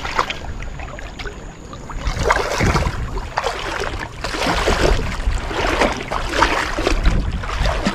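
Irregular splashing and sloshing of river water as a fishing net with caught fish in it is worked and hauled in.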